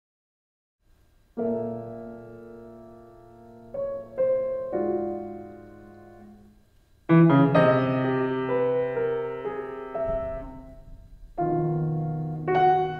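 Piano playing slow chords, each struck and left to ring and fade, after about a second of silence; a louder, fuller chord comes in about seven seconds in and another near the end. No voice has entered yet.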